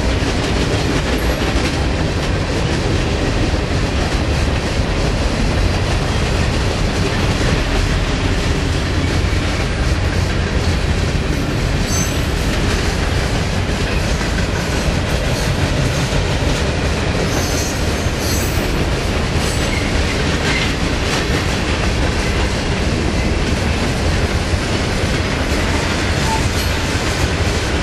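Freight cars of a long mixed freight train (tank cars, covered hoppers and boxcars) rolling past at a decent speed: a steady loud rumble with the clickety-clack of wheels over rail joints.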